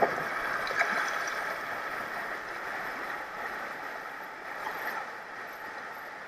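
Steady rush of shallow river rapids around a swamped kayak that is being turned upside down to drain, with a few light knocks in the first second.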